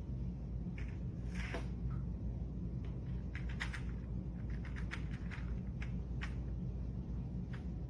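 A puppy playing with a small plastic toy on a tile floor: light, irregular clicks and taps of the toy and paws on the tiles, over a steady low hum.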